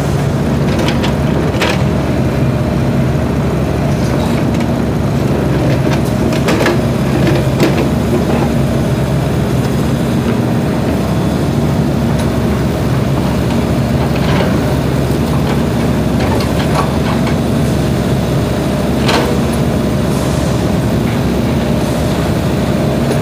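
SANY compact excavator's diesel engine running under hydraulic load as it digs and swings, its note strengthening and easing with the work. A few sharp knocks come through from the bucket working in the rubble.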